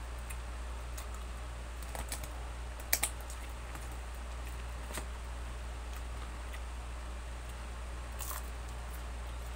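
Plastic spoon and fork clicking and scraping against a takeout food box while fried chicken is pulled apart, as scattered light clicks with a sharp double click about three seconds in. A steady low hum sits underneath.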